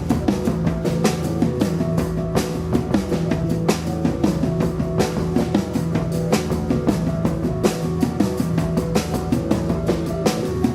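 A rock band playing live: a fast, steady drum beat over a repeating bass line held on long notes.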